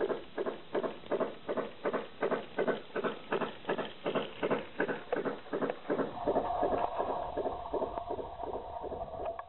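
Garden-scale model steam locomotive's sound unit chuffing steadily at about three beats a second; around six seconds in a steady tone joins the chuffing.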